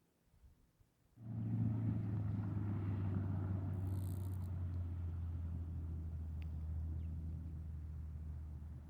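Low, steady engine hum that starts suddenly a little over a second in and slowly fades.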